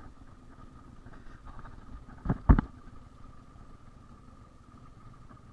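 Royal Enfield Bullet motorcycle engine running steadily, with two sharp thumps in quick succession about two and a half seconds in.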